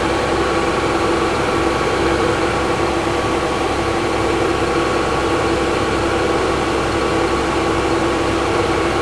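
Combine harvester running steadily while harvesting soybeans: an even machine drone of engine and threshing, with a constant hum of several held tones.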